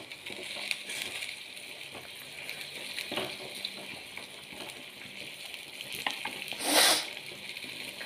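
Red-chilli mackerel curry simmering in a steel pot: a steady bubbling, crackling hiss with small ticks, and a brief louder rush of noise about seven seconds in.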